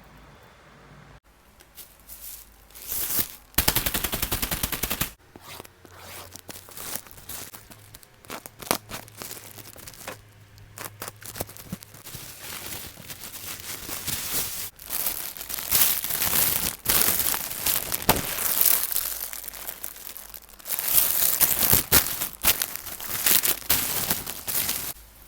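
Plastic packaging being torn open and handled: loud crinkling and crackling in repeated bursts with sharp snaps.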